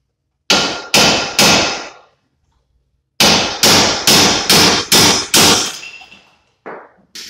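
Hammer blows on the nut threaded onto the end of a Honda Civic's front axle shaft, knocking the shaft loose from the wheel hub. Three blows, a pause, then six quicker blows, each ringing like metal, and two lighter knocks near the end.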